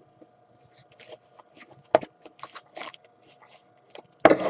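Trading-card box and packaging being handled: a run of short rustles, scrapes and clicks of cardboard and wrapping, with one sharp click about two seconds in and a louder rustle near the end.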